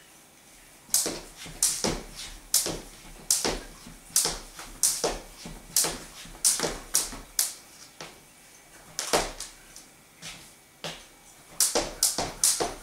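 Jump rope slapping the wooden floor with feet landing. Sharp, irregular strikes start about a second in, sometimes in quick pairs, break off briefly twice, then come faster near the end.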